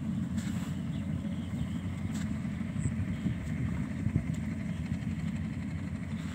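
Yanmar combine harvester's diesel engine running steadily, a constant low rumble with a few light clicks now and then.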